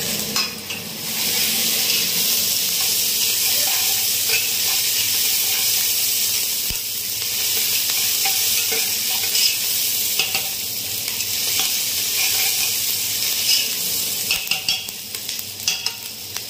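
Chicken frying in a hot pan, a steady sizzle, with a spoon stirring and clinking against the pan, more often near the end.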